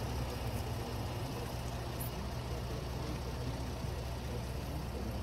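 Vehicle engine idling, a steady low hum.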